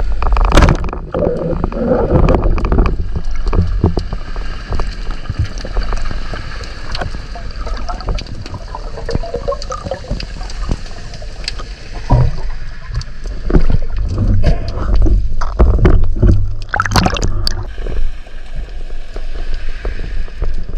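Water gurgling and sloshing around the camera, with a constant low rumble, scattered clicks and knocks, and a few sharp splash-like bursts, near the start and about 17 seconds in.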